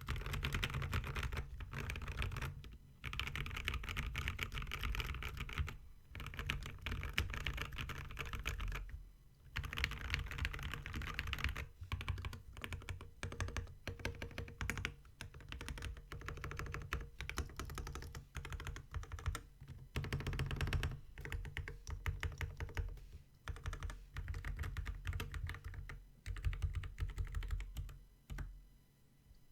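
Typing on a polycarbonate-cased Maja mechanical keyboard with lubed Alpaca linear switches and MT3 keycaps: rapid runs of keystrokes in bursts, broken by short pauses every few seconds, stopping shortly before the end.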